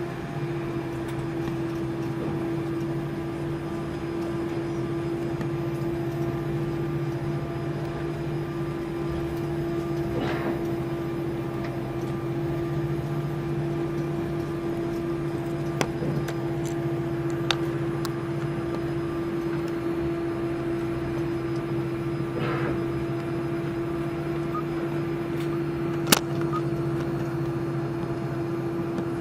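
Steady cabin drone of an Airbus A340-300 taxiing, its CFM56 engines at low thrust with a constant droning hum. No rise in pitch, so the take-off roll has not begun. A few sharp clicks in the cabin, the loudest near the end.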